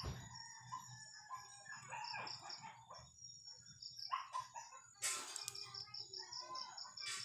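Chickens calling, including a rooster crowing, with a sudden rustling burst about five seconds in. A fast, even, high-pitched chirping pulses in the background.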